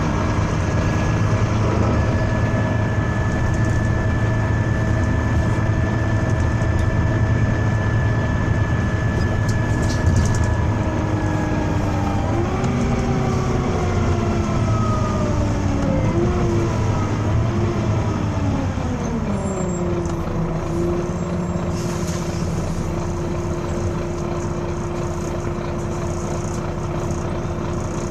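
Volvo B9TL double-decker bus running with a steady high whine over the engine rumble; about twelve seconds in, a strange wailing noise slides down in several wavering tones over some eight seconds, then settles into a steady lower hum.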